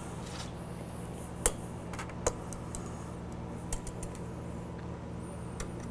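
A handful of light, sharp metallic clicks and taps as a digital caliper and hand tools touch the motorcycle's aluminium top triple clamp and fork tube during measuring, over a steady low hum.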